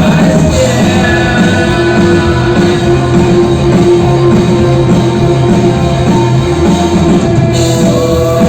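Rock song with singing, a band playing with a steady beat and long held notes.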